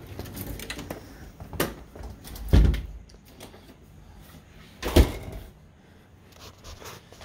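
Glass-paned wooden door being pushed open and shut: a light knock about one and a half seconds in, a heavy thump about two and a half seconds in, and another loud, sharp thump about five seconds in.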